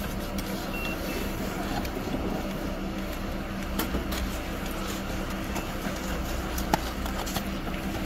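Chairlift terminal machinery running with a steady low hum, with a few sharp clicks and knocks over it, the sharpest near the end.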